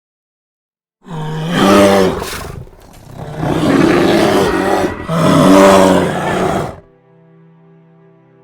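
A large animal roaring in three long, loud bouts, then faint music starting near the end.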